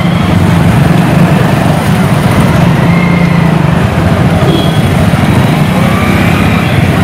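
Motorcycle engines idling steadily at close range, a low pulsing run.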